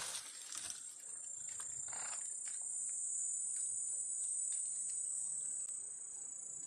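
Steady, high-pitched shrill of insects, with a few cracks and snaps of dry wood being broken apart by hand, mostly in the first two seconds.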